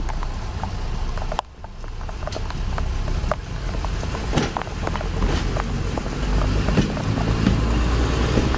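Class 121 first-generation diesel railcar running into the platform, its low engine and running rumble growing louder as it comes close, with scattered sharp clicks and knocks. Wind buffets the microphone.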